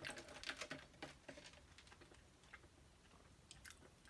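Faint clicks and taps from a drink cup and straw being handled, thickest in the first second and a half and then a few scattered ticks.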